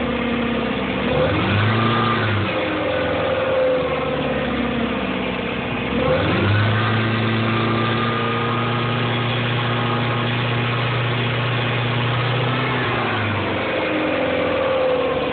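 BMW E39's M62 V8 engine idling. It is revved briefly about a second in, then held at raised revs from about six seconds in for some seven seconds before dropping back to idle.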